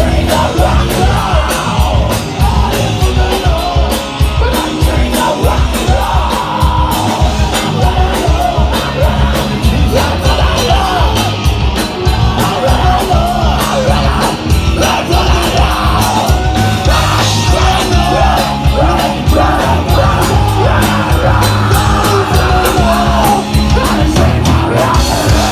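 Rock band playing live and loud, with pounding drums, electric guitars and a yelled lead vocal. The band stops together at the very end, leaving a low amplifier hum.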